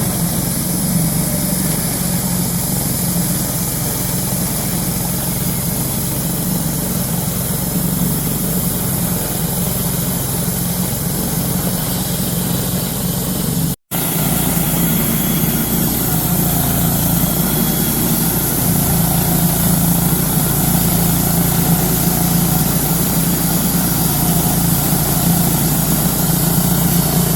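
Wood-Mizer LT-10 portable sawmill running steadily under power while its band blade saws a log. There is a split-second break in the sound about 14 seconds in.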